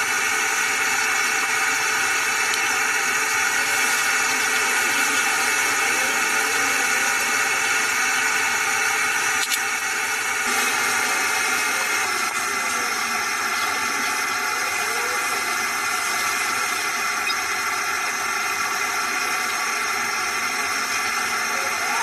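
A steady machine noise, an even hiss with several steady high tones.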